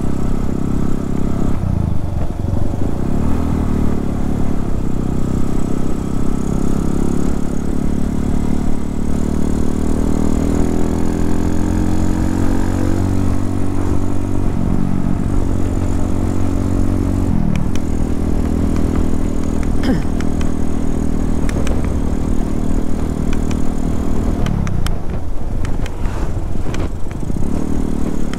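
Motorcycle engine running while riding in traffic, its pitch rising and falling with the throttle, over a steady low rumble of wind on the microphone. A few short clicks or knocks come in the second half.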